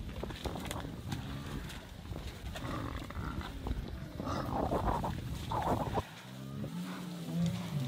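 Lions and African buffalo calling during a lion attack on a buffalo herd: deep bellows and growls, with a few louder cries in the middle. About six seconds in the sound changes abruptly to low, drawn-out buffalo calls.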